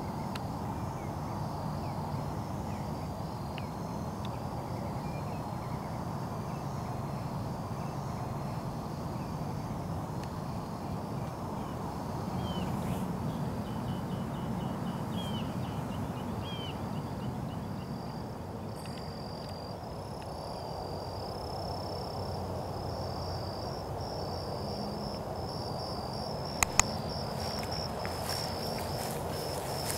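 Night ambience of crickets chirping in a steady, repeated trill over a low, steady rumble. A few short rising calls come about halfway through, and two sharp clicks near the end.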